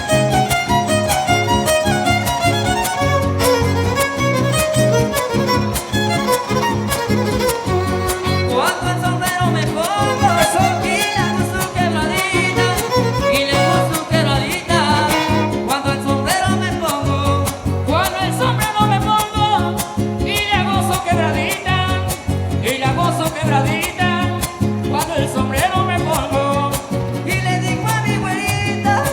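Son huasteco (huapango) music played live: a violin carries a melody full of slides over a rapid, steady strummed rhythm from the jarana and huapanguera guitars.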